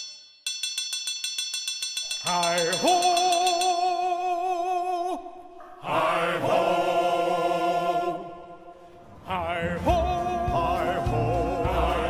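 Music: voices singing long, wavering held notes over a soft accompaniment, opening with a brief run of fast ticking.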